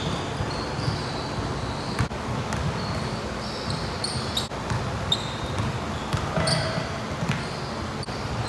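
Pickup basketball game on a hardwood gym floor: a basketball bouncing with several sharp thuds, and short, high sneaker squeaks as players cut and stop.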